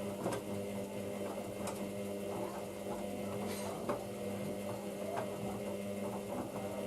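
Hoover DYN9144D3X washing machine running early in a Coloureds 40 wash: a steady hum with scattered light clicks and knocks.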